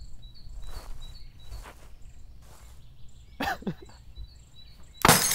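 A glass bottle thrown at a building wall smashes suddenly near the end. Before it, over quiet outdoor ambience, a bird chirps in short repeated notes.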